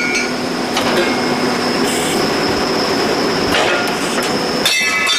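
CNC angle line for steel angles running, with a steady high whine over a dense metallic rumble. A few sharp metal clanks come about a second in and again later. A cluster of clanks near the end follows the whine cutting off.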